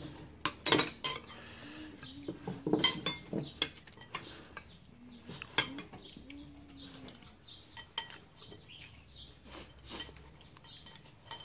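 Chopsticks and spoons clinking against bowls and plates during a meal: a dozen or so scattered, irregular clinks.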